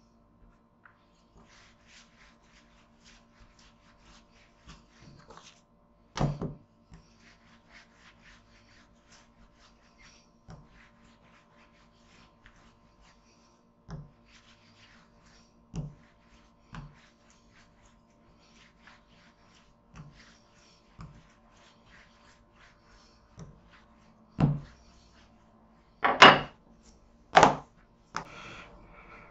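Wooden rolling pin rolling out bread dough on a wooden worktop: soft rolling and tapping with scattered knocks, and two louder thumps near the end.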